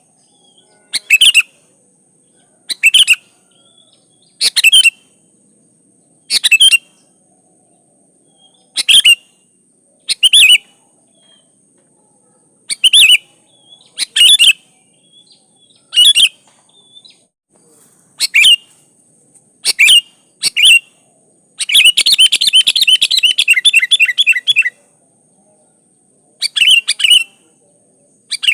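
Sooty-headed bulbul (kutilang) calling: short calls repeated about every one and a half to two seconds, then a longer rapid chattering run of about three seconds near the end.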